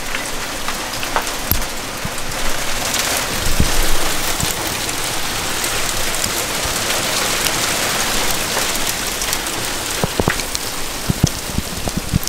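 Hail shower: a dense steady hiss of ice pellets pelting the ground and nearby surfaces, with scattered sharp ticks of single pellets striking close by, more of them near the end.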